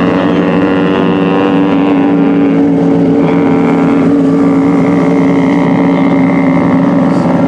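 A vehicle engine running steadily, loud and close, with an even hum that holds a constant pitch.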